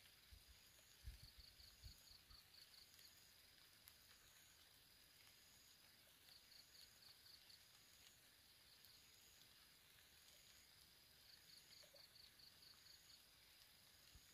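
Near silence, with faint high-pitched insect calls: a chirping trill that repeats every few seconds. A few low thumps come about a second in.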